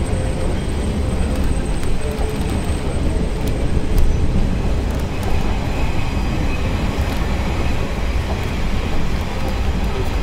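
Steady rumble and rattle of a moving passenger train heard from aboard a car, its wheels running over the track with scattered small clicks.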